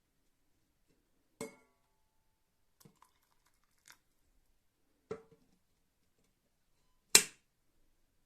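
Whistling kettle being handled: a handful of sharp clicks and knocks, three louder ones about a second and a half, five and seven seconds in, and fainter ones between; the first rings briefly.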